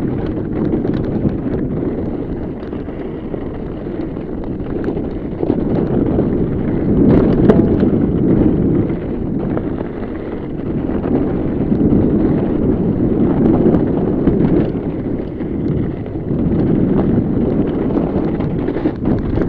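Fat bike descending a rough, snowy trail: heavy wind buffeting on the microphone mixed with the steady rattle and knocks of the bike and its tyres over the ground, swelling and easing as the speed changes.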